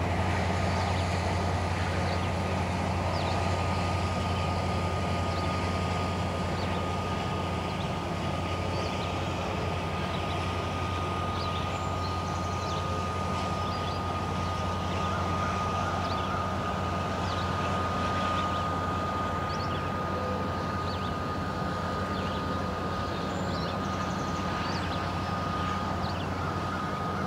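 Diesel freight locomotive running at low throttle with a steady low drone as the train moves slowly, with a thin, steady high whine above it.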